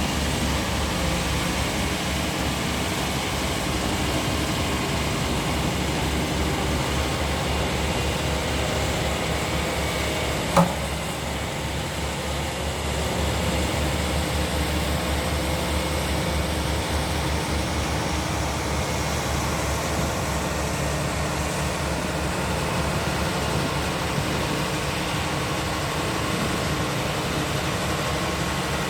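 Heavy construction machinery's diesel engine running steadily, with a fast low pulsing under it. A single sharp click about ten and a half seconds in.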